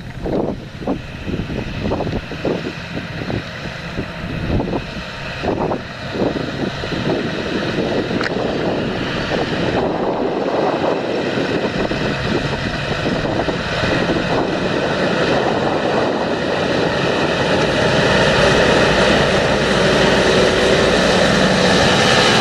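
John Deere 7230R tractor's six-cylinder diesel engine running steadily under load while pulling a seed drill across the field. It grows gradually louder as the tractor approaches and passes close by.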